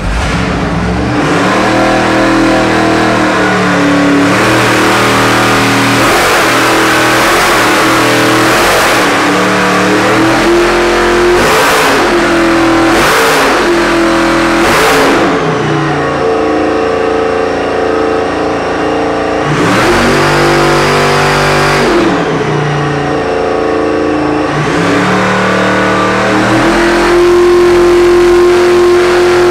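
Roots-supercharged 572 cubic-inch big-block Chevy V8 running on an engine dyno, revved up and down repeatedly and held at steady high rpm for a few seconds at a time.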